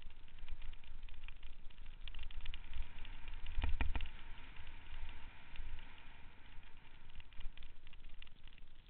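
Bicycle rolling down a rough dirt trail: wind buffeting the microphone as a low rumble, with constant small rattles and clicks from the bike and tyres over loose dirt and stones. A cluster of hard knocks about three and a half seconds in as the bike jolts over a bump.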